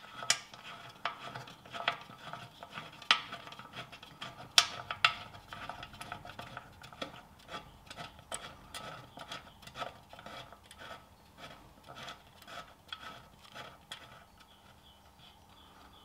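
A steel bolt being turned in by hand into the flange of a Ferguson TED20 engine's sump: a run of light, irregular metallic clicks and scrapes as it threads in, thinning out and quieter near the end.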